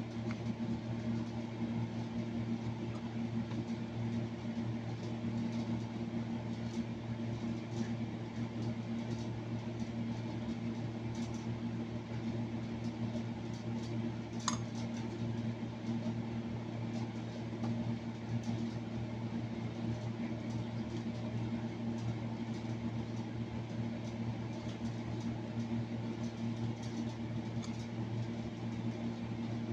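A steady low machine hum, such as a kitchen fan or appliance motor gives, with faint handling ticks and one sharp click about halfway through.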